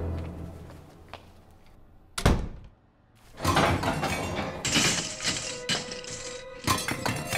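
A door shuts with a single loud thud about two seconds in. After a short hush, a run of kitchen clatter follows: pots, pans and utensils banging and rattling.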